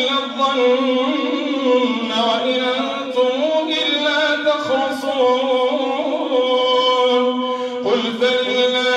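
A man's solo Quran recitation, chanted melodically with long held notes. A new phrase begins about a second before the end.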